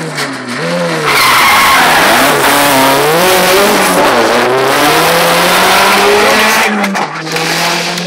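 Lancia Delta rally car sliding through a tight corner under power. Its tyres squeal with a wavering pitch over the running engine from about a second in, then the squeal stops shortly before the end as the car pulls away.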